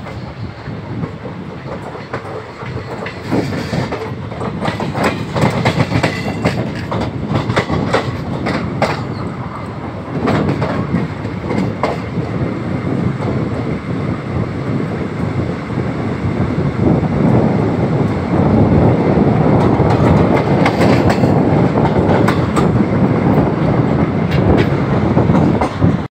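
Indian Railways passenger coach running along the track, heard from its open window: steady rumble of the wheels with repeated sharp clicking as they cross rail joints and switch points, growing louder in the second half.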